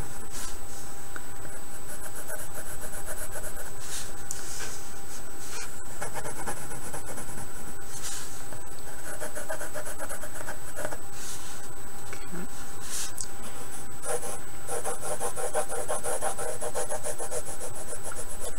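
Pencil scratching and rubbing on drawing paper in short runs of quick back-and-forth strokes as lines are gone over and thickened, with a longer run near the end. A steady high whine and hiss sit underneath throughout.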